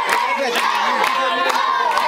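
Crowd of mostly children shouting and cheering, many high voices at once without a break, with scattered sharp clicks.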